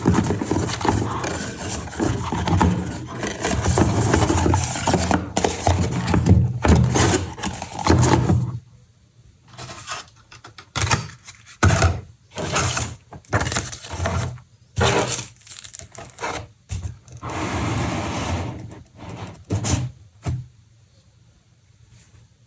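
Unboxing handling of a graphics card's box and packaging: continuous scraping and rubbing for about eight seconds, then a string of short separate scrapes and rustles that stop about two seconds before the end.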